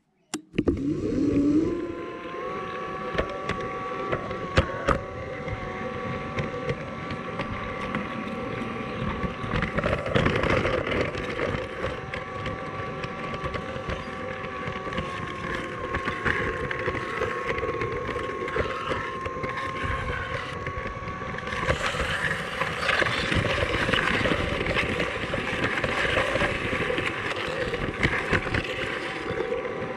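Small electric motor of a G scale model tram running with a steady whine, heard from on board, with the wheels rattling and clicking along the track. It starts about half a second in and grows louder and hissier about two-thirds of the way through.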